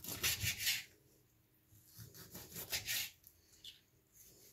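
Kitchen knife slicing raw squid on a cutting board: two bouts of quick rasping strokes, the first right at the start and the second about two seconds in.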